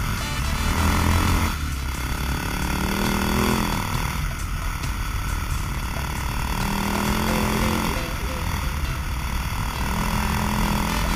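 Dirt bike engine revving up under acceleration and easing off several times as the bike is ridden at speed, with wind rushing over the microphone.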